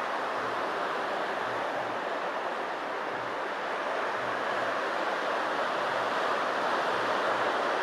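Surf breaking and washing up a sandy beach: a steady rush of noise that grows slightly louder in the second half.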